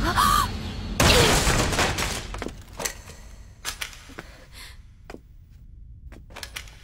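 A loud crash about a second in that dies away over a second or so, followed by a few scattered sharp knocks. A short cry comes just before it, at the very start.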